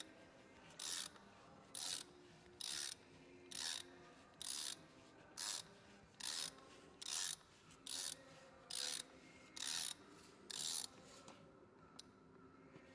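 Ratchet wrench clicking in short bursts on each back-stroke, about once a second and twelve times in all, as a cap-wrench socket turns out the oil filter housing cap during an oil change.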